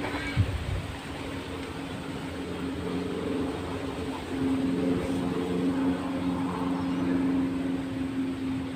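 A motor engine running steadily in the background, a low even drone that grows a little louder about four seconds in. A single short knock sounds just after the start.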